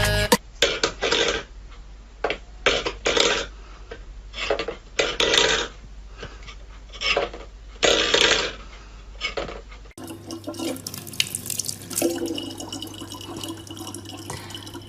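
Water splashing in short irregular bursts, then after about ten seconds a tap running steadily with a low hum under it.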